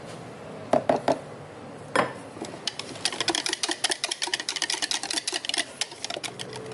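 Kitchen utensils and dishes in use: a few sharp knocks, then about three seconds of rapid, light clicking and tapping.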